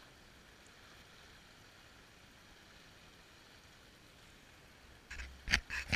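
Faint, steady hiss of small waves washing on a sandy shore. About five seconds in, loud knocks and scrapes break in: the camera being handled close to its microphone.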